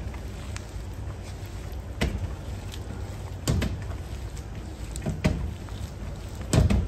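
A steady low hum with four dull knocks, about a second and a half apart, the last one the loudest.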